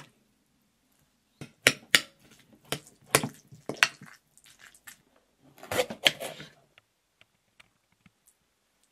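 A metal fork and knife clinking and scraping against a glass food container while salmon is broken up into cottage cheese: a run of sharp separate clinks, then a quicker cluster of scrapes about six seconds in.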